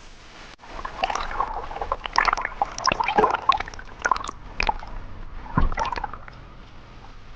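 Water sloshing and gurgling around a spearfisher diving down from the surface, heard underwater: an irregular run of bubbly gurgles and sharp clicks starts about a second in and dies down to a steady hiss near the end.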